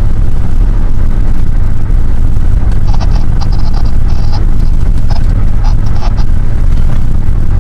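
Loud, steady low rumble of road and wind noise inside a moving car's cabin, with a few brief higher-pitched sounds in the middle.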